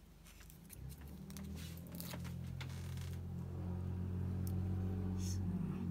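A low, steady hum starts about a second in and slowly grows louder, with light rustles and soft taps as small fabric applique pieces are handled and placed on an ironing board.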